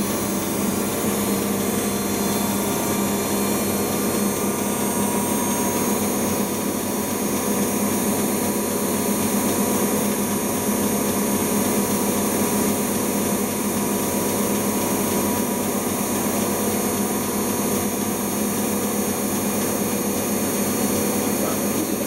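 Siemens serie IQ front-loading washing machine in its cotton final spin, the drum spinning at speed: a steady machine whine and hum with a constant hiss, holding even throughout.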